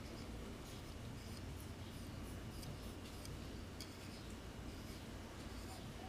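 Faint, irregular light scratching and ticking over a low steady hum.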